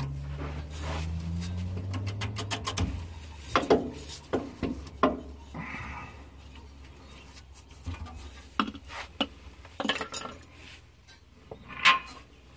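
A small power tool motor runs steadily, its pitch rising a little, while it spins the nut off the top mount of a rear shock absorber, and it stops about three seconds in. Then come scattered metal clinks and knocks as the nut, washer and rubber bushes are worked off the shock's stud.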